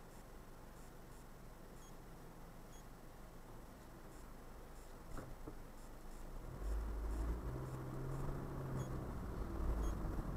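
A car standing quiet with faint, evenly spaced ticking. About six and a half seconds in, it moves off and the low rumble of engine and road noise rises and holds.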